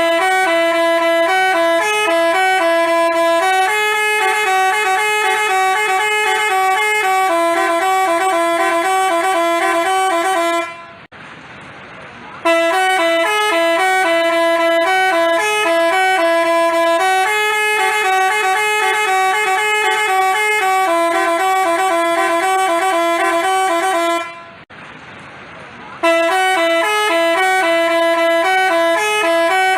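Basuri telolet musical bus horn playing a tune of short, clear notes. The same phrase plays over three times, breaking off briefly twice before starting again.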